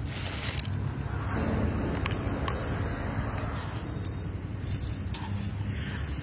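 Steady low outdoor rumble with brief rustles and scrapes. The first, right at the start, is paper rustling as chopped chocolate pieces slide off a paper sheet into a plastic blender jar; a few more come near the end.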